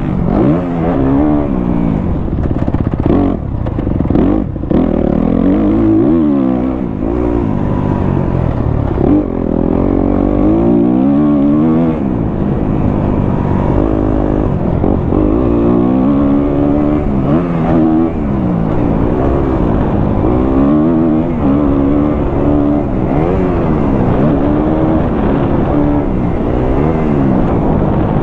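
Four-stroke single-cylinder Kawasaki KX250F dirt bike engine ridden hard, heard on board: the revs keep climbing and dropping every second or two as the rider works the throttle and shifts through gears.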